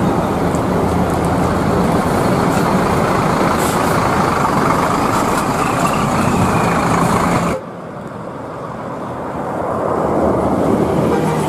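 Large coach buses running: engine and road noise from a bus moving close by. About two-thirds in, a sudden cut drops it. The noise then builds again as another coach approaches.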